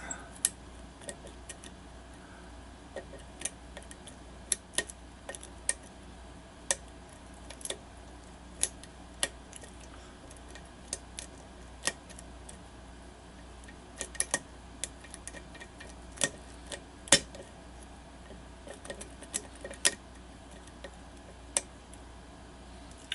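Small, sharp metallic clicks at an irregular pace as a lock pick works the pin stack of a five-pin pin-tumbler lock under tension.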